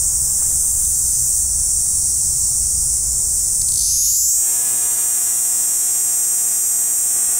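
Cicada singing: a loud, steady, high-pitched buzz. About four seconds in it rises slightly in pitch and turns coarser and more electric-sounding.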